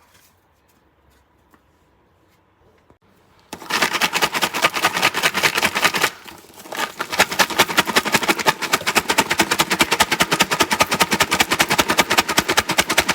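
Rapid, even clicking or tapping, about ten sharp strikes a second, starting suddenly after a few quiet seconds, breaking off briefly, then resuming.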